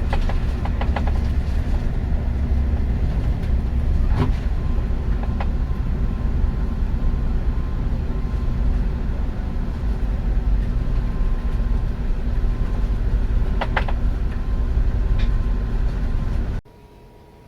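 Train running on the rails: a steady low rumble with a quick run of wheel clicks over rail joints in the first second and a few single clicks later. It cuts off suddenly near the end, leaving a much quieter steady hum.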